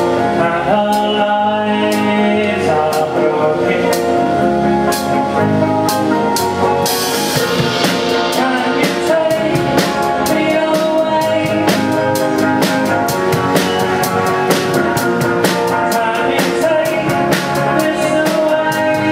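Live band playing acoustic guitars, bass guitar and drum kit, with singing. About seven seconds in, a cymbal crash sets off a steady, busier drum beat.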